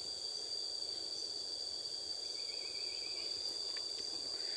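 A steady chorus of insects holding two continuous high-pitched tones, over a faint background hum.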